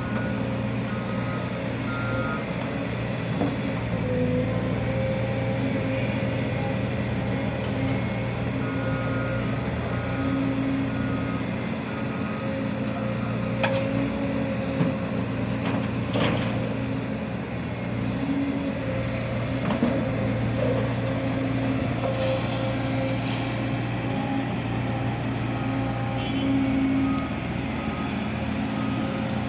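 Heavy construction machine's diesel engine running steadily, with a reversing alarm beeping in a repeating pattern near the start and again near the end, and a few sharp clanks.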